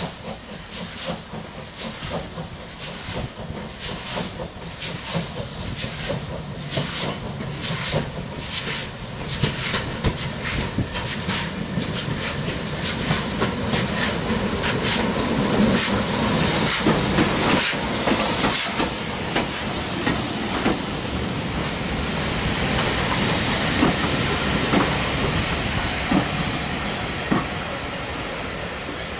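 Norwegian State Railways class 21c steam locomotive No.376 approaching with regular exhaust beats that grow louder, then a strong hiss of steam as it passes. Its coaches follow, rolling by on the rails, the noise easing off near the end.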